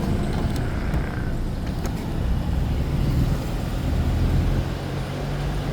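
Engine and road noise from a moving vehicle, a steady low rumble with an engine hum underneath.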